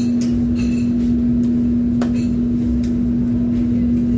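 Steady hum of commercial kitchen machinery: one unchanging tone over a low rumble, with a few light clicks and knocks from food prep at the counter.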